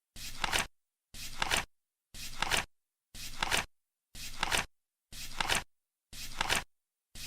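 Flip clock's flaps flipping once a second, each flip a short flutter that ends in a sharp clack.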